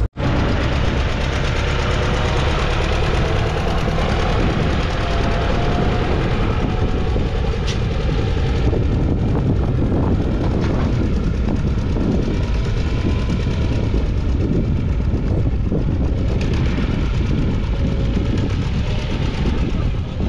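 Farm tractor's diesel engine running steadily under load as it pulls a trailer loaded with stones along a dirt track.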